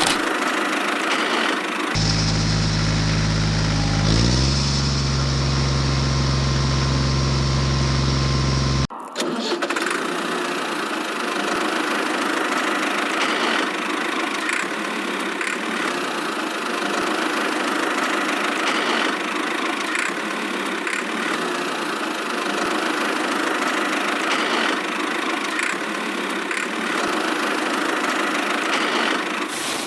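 Engine-like mechanical running noise: a steady low hum that steps up in pitch a few seconds in and cuts off abruptly, followed by a steady hissing, grinding machine noise.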